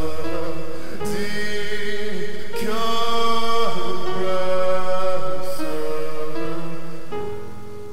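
Electronic music: layered, sustained chords that shift every second or two, fading down near the end.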